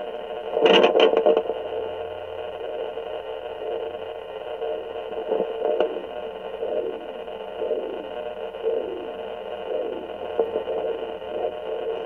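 Pocket fetal Doppler's speaker playing a heartbeat as rhythmic whooshing pulses, about one and a half a second, over a steady hiss, with a loud scraping rustle about a second in.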